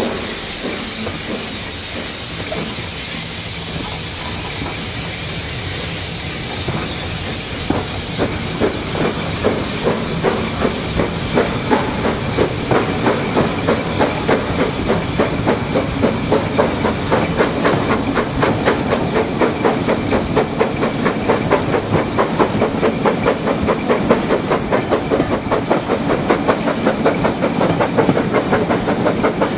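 Two BR Standard Class 9F 2-10-0 steam locomotives double-heading a train, heard from an open carriage window: steady steam hiss and rushing air, then from about eight seconds in fast, regular exhaust beats that grow stronger.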